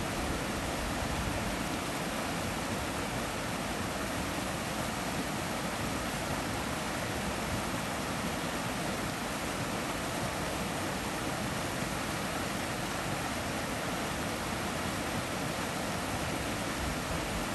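A shallow rocky stream rushing over a small rapid: a steady, even rush of white water with no breaks.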